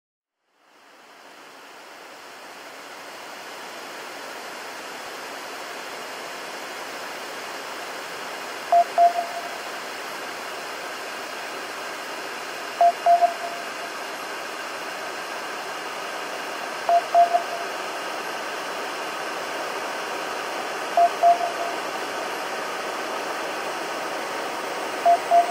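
Electronic hiss-like noise fades in and slowly swells, with a short pitched double beep about every four seconds, five times.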